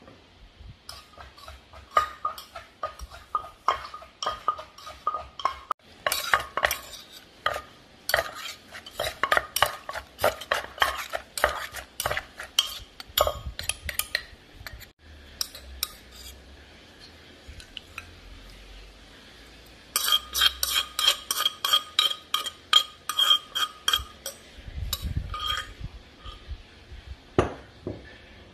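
Wooden pestle pounding green papaya salad in a clay mortar, with a metal spoon clinking and scraping against the mortar as the salad is turned. Quick, repeated strikes come in several runs, each strike with a short ringing note.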